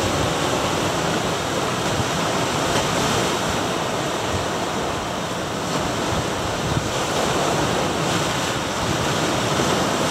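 Ocean surf washing and breaking over granite shore rocks: a steady rush of seawater without separate crashes.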